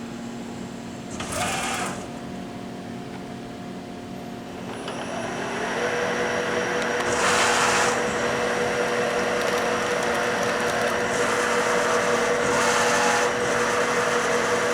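CNC bed mill starting a program: the 6 HP inverter-driven spindle motor spins up about five seconds in, its whine rising and then holding steady. Over the running machine come a few brief louder rushes of noise, one early, one about seven seconds in and one near the end.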